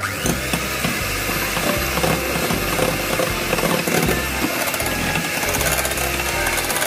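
Electric hand mixer switched on at the start and running steadily, its twin wire beaters whisking eggs and sugar in a bowl with a constant motor whine.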